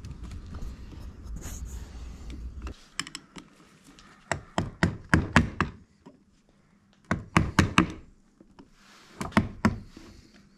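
Sharp taps in several quick bursts of a few strikes each, as a retaining ring is knocked into its groove on the A/C compressor pulley. A low rumble stops about three seconds in.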